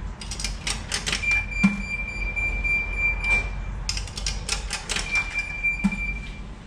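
Coins fed one after another into a self-serve car wash coin box, clicking and clinking through the coin mechanism in two quick runs. Each run is followed by a steady high beep lasting about two seconds as the machine takes the credit.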